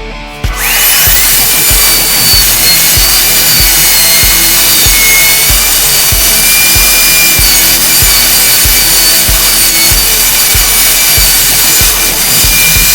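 Electric wood router spinning up about half a second in, then running steadily with a high whine while cutting into wood. Background music with a steady beat plays underneath.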